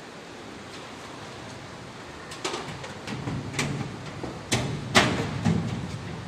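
Blue steel locker door being handled at its key lock: a series of sharp metallic clicks and knocks starting about two seconds in, the loudest about five seconds in.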